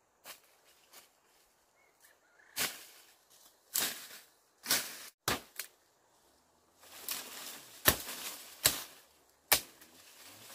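A machete chopping thin woody saplings and brush: about seven sharp strikes at uneven intervals, with leaves and stems rustling between them.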